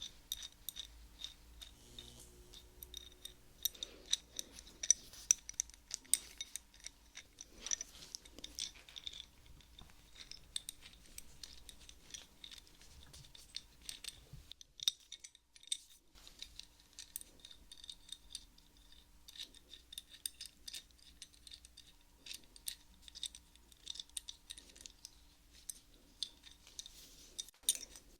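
Adjustable wrench handled close to the microphone: quick, irregular metallic clicks and ticks, with a short pause about halfway.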